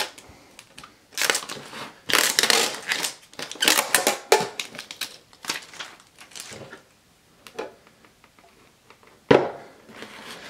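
Packaging being pulled apart and handled, crinkling and rustling in irregular bursts, with a single sharp click about nine seconds in.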